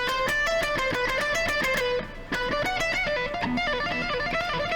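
Guitar playing a fast sequenced scale lick of rapid single notes in groups of four, about ten notes a second, with a brief break about two seconds in before the run carries on.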